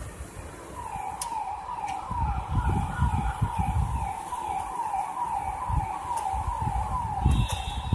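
An electronic siren repeating a quick falling yelp, about three times a second, starting about a second in, over low gusty rumbles of wind on the microphone.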